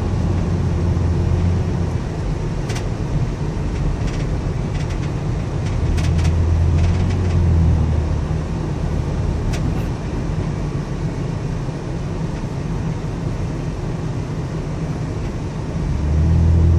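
Steady engine and road noise inside a moving car's cabin, a low rumble that grows louder for a couple of seconds around six seconds in and again near the end.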